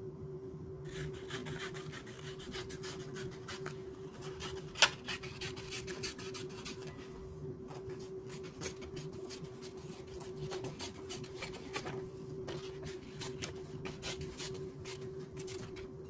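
Paper being handled and rubbed: rustling, crinkling and scratchy clicks as the printed design and stencil sheet are worked by hand, with one sharp click about five seconds in, over a faint steady hum.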